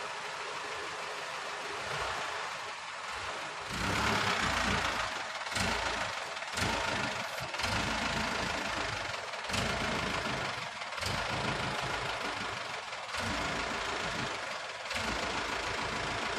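T-King mini dump truck's engine running, growing louder about four seconds in, its low rumble rising and dipping unevenly.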